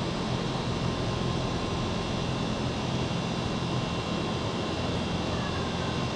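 Steady mechanical hum and hiss with a faint steady whine, like machinery such as an air-conditioning unit running.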